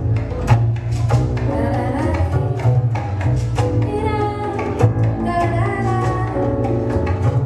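Recorded dance music with a strong bass beat and percussion.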